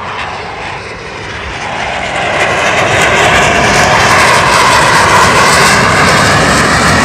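Blue Angels F/A-18 Hornet jet flying over, its twin-turbofan engine noise swelling over the first three seconds, then holding loud and steady with a slowly wavering hiss.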